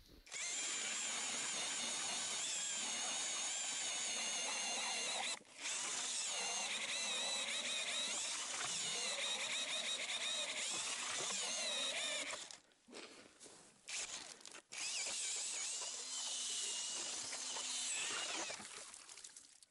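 Ice auger with a blue spiral cutting head boring a hole through the ice: a continuous scraping sound with wavering high squeals as the blades cut. It stops briefly about five seconds in, breaks off again for a couple of seconds a little past halfway, then cuts on and fades out just before the end.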